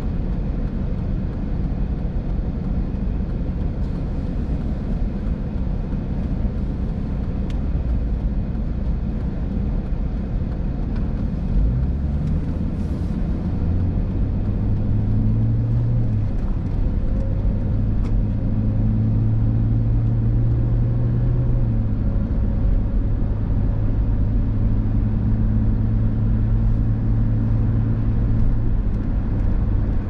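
Car engine and road noise heard from inside the cabin: a steady low hum while stopped, then the engine note rises as the car pulls away about twelve seconds in, settling into a steady drone at speed.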